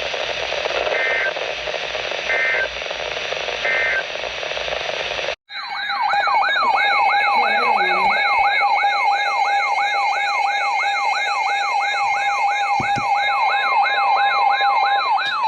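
Over radio static, three short bursts of EAS digital data tones about a second and a half apart, the end-of-message code of an alert broadcast. About five seconds in, the sound cuts out briefly and a loud emergency alert tone starts: a steady tone under a warble that sweeps up and down about two and a half times a second.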